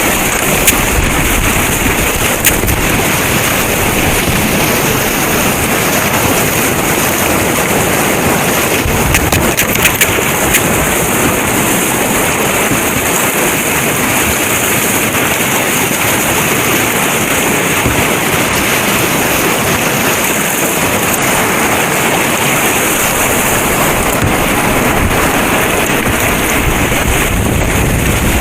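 Steady rushing of river whitewater, a loud, even noise of fast water with no break.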